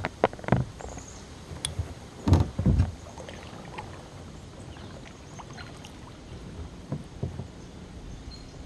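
Kayak paddling on calm river water: paddle strokes with small splashes and drips, and a couple of loud low knocks between two and three seconds in.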